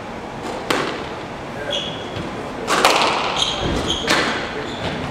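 Squash rally: three sharp cracks of racket on ball and ball off the wall, with short high squeaks of court shoes on the wooden floor between them.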